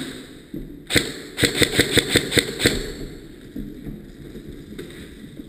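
Airsoft gun firing: one shot about a second in, then a quick string of about seven shots at roughly five a second.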